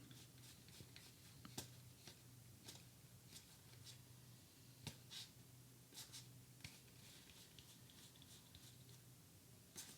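Near silence with faint, scattered clicks and light rustles of playing cards being handled, over a faint low steady hum.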